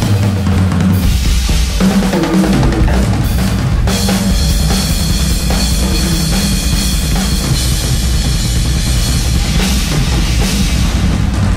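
Live drum kit played hard and continuously: rapid strokes on snare, toms and bass drum, with cymbals crashing and washing over the top, thicker from about four seconds in.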